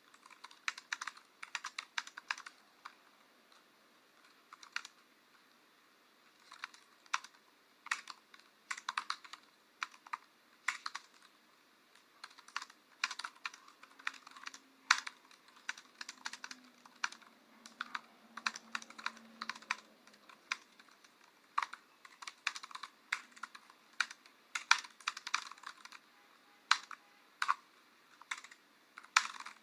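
Typing on a computer keyboard: irregular runs of key clicks with short pauses between bursts, including a break of about two seconds a few seconds in.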